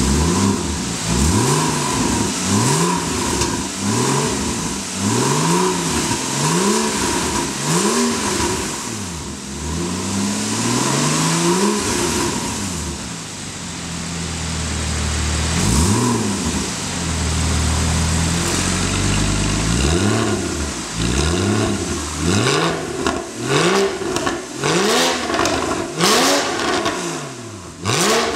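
Porsche Boxster S (981) 3.4-litre flat-six revved repeatedly while standing still, through a Capristo valved aftermarket exhaust. Quick throttle blips come about once a second, with slower rises and settles in the middle. Sharper blips near the end bring crackling pops as the revs fall.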